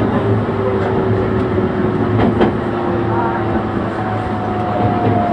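Meitetsu electric train heard from inside at the front, running with steady rolling noise and a thin motor whine that slowly falls in pitch. A couple of sharp clacks from the wheels on the rails come about two seconds in.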